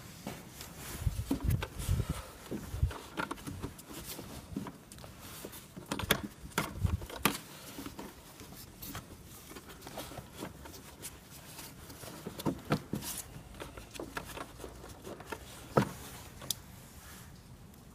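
Hands working a new panel air filter into a plastic airbox and shifting its cover aside. Scattered plastic knocks, scrapes and rustles, with one sharp knock near the end.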